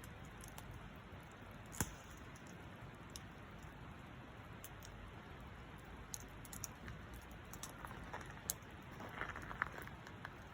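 Wood campfire crackling faintly over a steady low hiss, with scattered pops: a sharp one about two seconds in and a cluster of pops near the end.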